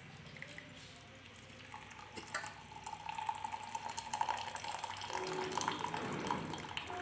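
Hot masala chai poured in a thin stream into a ceramic mug: a steady trickling splash that grows louder about two seconds in, with a faint ringing tone from the mug as it fills.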